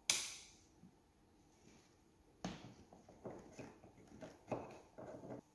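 Handling sounds from a robot vacuum's plastic base station: a sharp click just after the start, then a run of irregular light knocks and rustles from about two and a half seconds in as the power cord is fitted into the back of the station.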